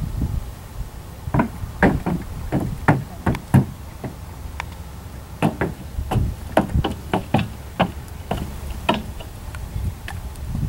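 Mule's hooves stepping on wooden platforms, a string of irregular knocks on the boards.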